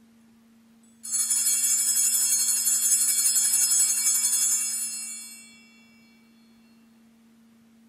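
Altar bells (a cluster of small handbells) shaken with a shimmering ring. They start suddenly about a second in, carry on for about four seconds and fade out by about six seconds in. This is the ring at the elevation of the host just consecrated.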